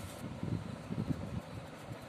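Pastel pencil shading quickly back and forth on paper, heard as irregular low rubbing strokes through the drawing surface; they die away about a second and a half in.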